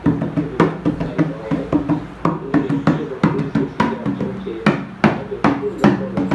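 Percussion-led music: quick, rhythmic drum hits, about two to three a second, over a steady low drone.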